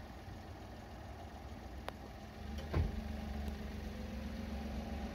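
A distant firework shell boom: one dull thump with a quick falling sweep about three seconds in. It sits over a low, steady engine-like hum that grows a little louder after the boom.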